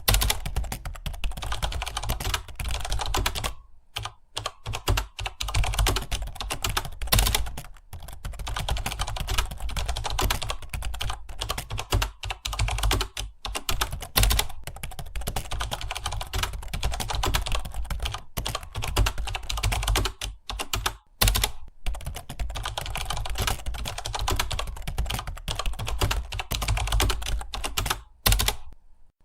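Fast, continuous typing on a computer keyboard: a dense run of key clicks with short pauses about four and eight seconds in, around twenty-one seconds, and near the end, over a low steady hum.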